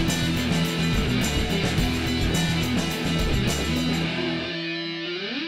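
Guitar-led rock theme music: strummed guitar chords over drums. The drums drop out about four seconds in, leaving a held chord with a rising guitar slide near the end.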